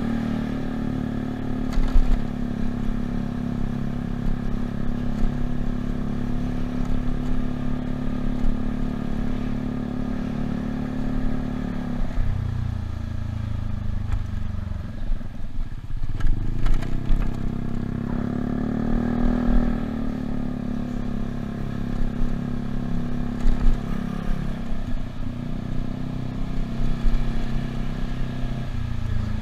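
Yamaha Cygnus scooter's single-cylinder engine running steadily while riding. About twelve seconds in it drops back towards idle as the scooter slows, then picks up again a few seconds later, with another brief easing off near the end.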